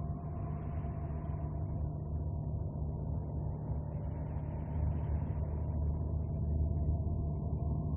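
Steady low rumbling drone with a couple of faint held tones above it and a higher hiss that swells and fades twice: Voyager spacecraft data turned into sound, presented as the sound of Saturn's rings.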